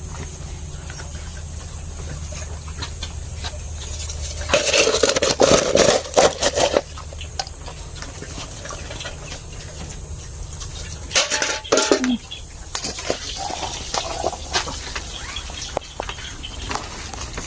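Water splashing and containers clattering while pigs are fed and watered, with a loud spell of clatter and splashing about five seconds in and a shorter one near the twelfth second. A steady low hum fills the first few seconds.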